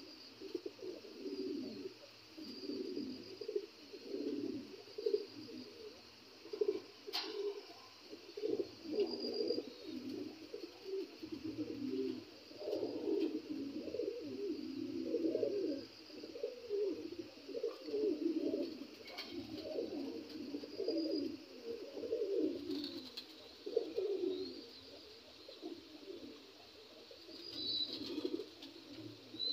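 Black Lahori pigeons cooing over and over in low, rolling phrases, the courtship cooing of a breeding pair.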